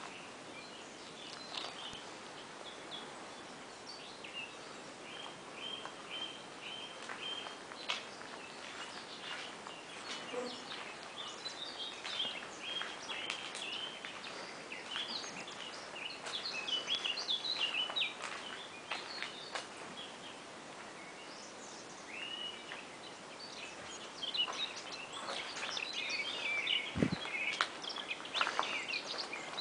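Small songbirds chirping and singing: a run of quick, evenly repeated notes a few seconds in, then busier overlapping song. There are scattered light clicks, and a dull thump near the end.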